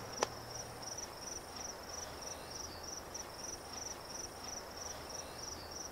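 Insects chirping steadily, a high pulsed chirp repeating evenly several times a second, with one sharp click just after the start.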